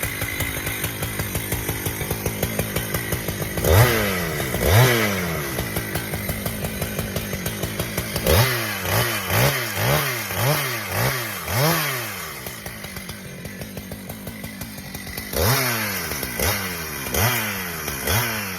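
Husqvarna two-stroke chainsaw idling with repeated throttle blips: two revs, then a quick run of about six, then three more, each rising and falling back to idle.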